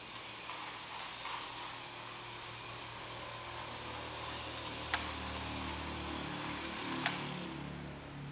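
Vehicle engine running over a steady hiss, its tone climbing and growing stronger from about halfway through, with two sharp clicks near the end.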